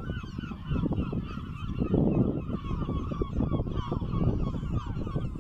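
A dense chorus of seabirds calling from the island's colony, many short calls overlapping continuously, over a low rumble that is loudest about two seconds in.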